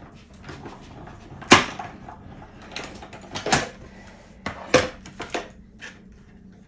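Cutting plates and a metal die being handled and run through a hand-cranked die-cutting machine: a series of sharp clacks and knocks, the loudest about one and a half seconds in.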